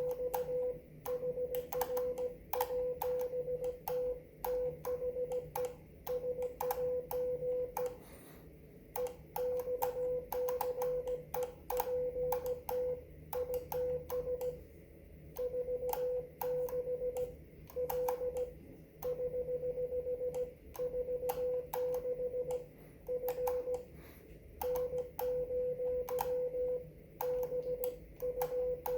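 Morse code (CW) from a ham radio transceiver on the 30-metre band: a steady tone near 500 Hz keyed on and off in dots and dashes, with sharp clicks at the keying. There is a short pause in the sending about eight seconds in.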